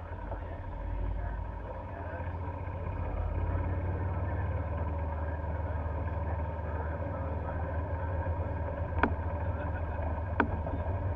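Steady low rumble of a moving golf cart, heard from on board, with two sharp knocks near the end about a second and a half apart.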